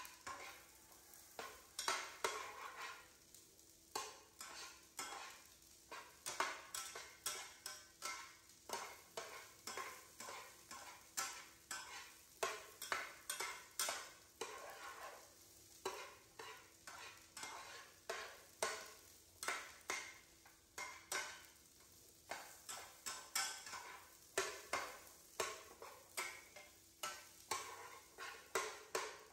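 Metal spatula stirring and scraping corn kernels around a frying pan: irregular runs of quick scrapes and clinks with short pauses, over a faint sizzle of the corn frying.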